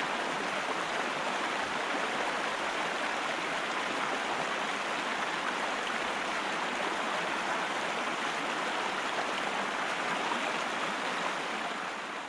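Whitewater rapids rushing steadily, beginning to fade out near the end.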